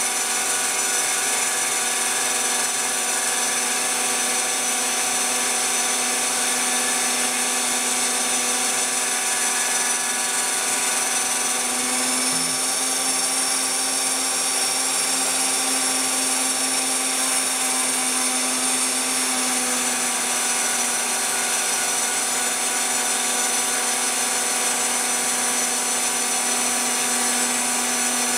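Spindle of a homemade Phlatprinter CNC mill running steadily while milling a fibreglass sheet, a steady high whine with cutting hiss. For several seconds around the middle its tone shifts slightly, then settles back.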